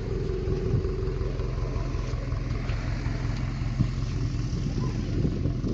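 Subaru WRX STI's turbocharged 2.5-litre flat-four engine idling steadily through its quad-tip exhaust.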